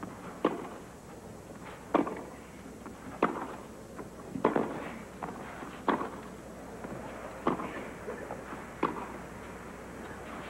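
Tennis rally on clay: the ball is struck back and forth with rackets, a sharp pop about every one and a half seconds, about seven hits in all.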